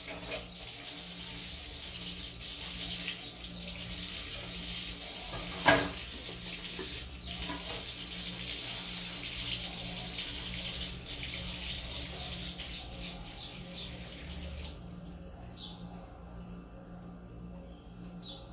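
Kitchen tap running into a stainless-steel sink, the stream splashing over hands being rinsed, with a few knocks, the loudest about six seconds in. The tap is shut off about fifteen seconds in.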